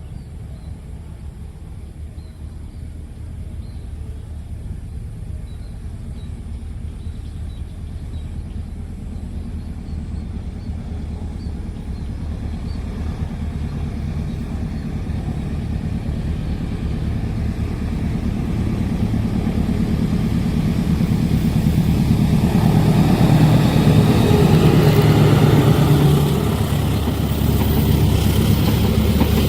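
Diesel locomotive of an approaching train, its engine rumble growing steadily louder over some twenty seconds and loudest a few seconds before the end.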